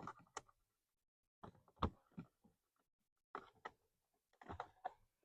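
Faint, scattered clicks and knocks in a few short clusters as the replacement blower motor is worked back into place under a car's dashboard.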